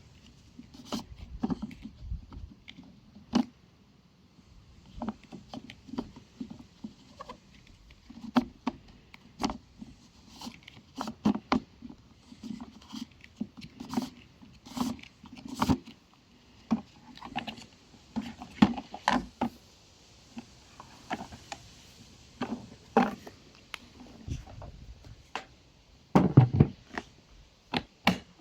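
Irregular plastic clicks, knocks and thuds of a wet/dry vacuum cleaner's body and parts being handled, with the motor off; a louder burst of knocks comes near the end.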